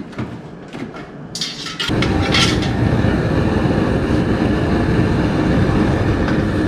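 A few metal clinks, then about two seconds in a high-pressure gas burner under a large stockpot comes on and runs with a loud, steady rush of flame, heating the pot back up to the boil.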